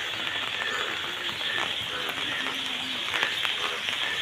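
Steady rain falling on flooded ground, with many sharp drop ticks scattered through it.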